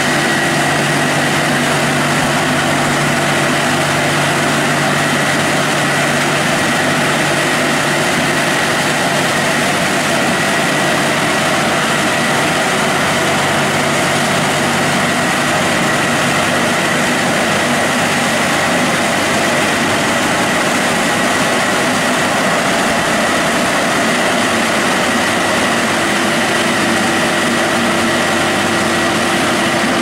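Seven-brush roll-over car washing machine running: a steady, loud mechanical roar with a constant high whine on top.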